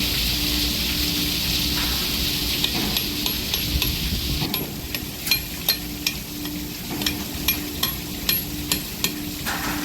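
A steady hiss for about four seconds, then a string of light metallic taps and clinks, roughly two a second, over a low machine hum that pulses on and off.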